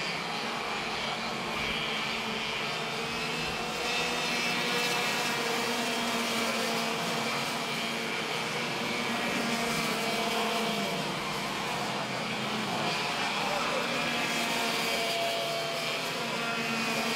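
Racing kart engines running at speed, a steady buzzing whine that rises and falls slightly in pitch.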